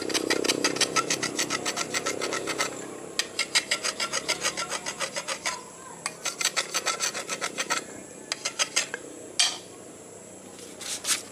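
Two steel golok blades scraped against each other, one drawn rapidly back and forth across the other's edge to scrape off iron stuck to it. The strokes come several a second in three long runs, then a few single strokes near the end.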